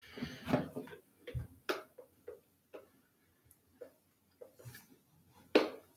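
A person sipping a shake through a straw from a plastic tumbler: a string of short, irregular sucking sounds and small mouth and cup clicks, with a louder one near the end.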